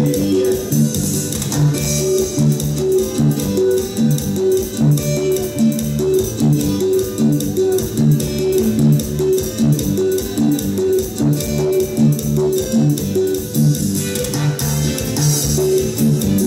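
Amplified Latin dance music: guitar and bass guitar over a steady, quick dance beat.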